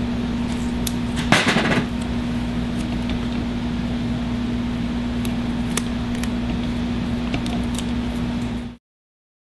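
Masking tape pulled off the roll with a short rasp about a second in, over a steady low hum, then a few light clicks of the cable lugs being handled; the sound cuts off abruptly near the end.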